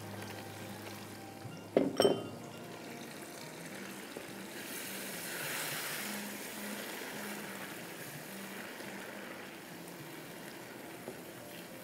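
Two sharp clinks against a non-stick pan about two seconds in, then chicken and potato curry simmering and bubbling as it is stirred, swelling to its loudest in the middle and settling again.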